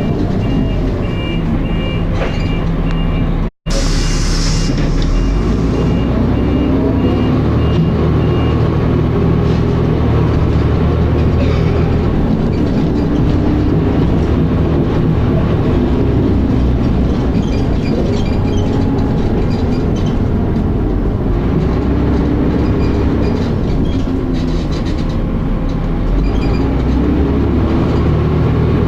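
Dennis Arrow bus engine and driveline heard from on board while it drives, with a high electronic beeping about twice a second for the first eight seconds or so and a brief dropout about three and a half seconds in. Near the end the engine over-revs; the bus has a slipping ZF automatic gearbox.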